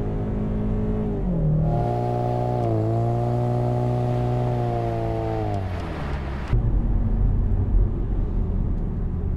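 2015+ EcoBoost Mustang's 2.3-litre turbocharged four-cylinder through a Magnaflow Competition axle-back exhaust, revving high and holding, then falling as the revs drop about six seconds in. It is heard from inside the cabin, then at the tailpipe, then back in the cabin as a low, even drone at lower revs.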